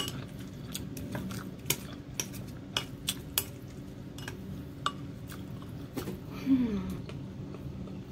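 Chopsticks clicking and scraping against a bowl of instant noodles: irregular sharp taps, roughly one or two a second, over a low steady hum. About six and a half seconds in comes a brief louder sound that falls in pitch.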